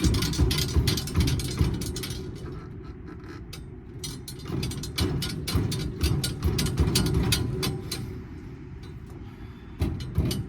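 Irregular clanks and knocks of metal being worked while a large air-conditioning unit is torn apart for scrap, in clusters about a second in and again between about five and eight seconds in, over a steady low rumble.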